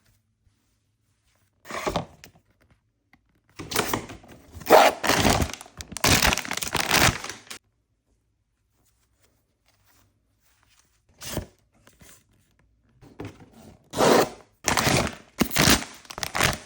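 Blind-box packaging being handled and torn open: bouts of tearing, crinkling and crackling wrapping with light thunks. There is a short burst early, a long bout a few seconds in, a brief one past the middle and another bout near the end, with quiet gaps between.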